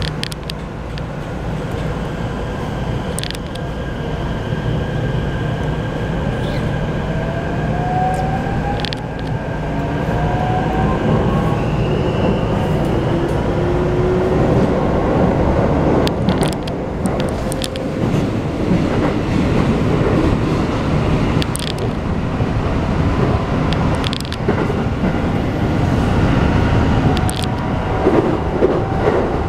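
Keikyu New 1000 series electric train with a Mitsubishi full-SiC VVVF inverter pulling away from a stop and accelerating, heard from inside the car. The traction motors' whine rises in pitch over the first half, over a low rumble of the running gear. Sharp clicks from the wheels crossing rail joints come in as it picks up speed.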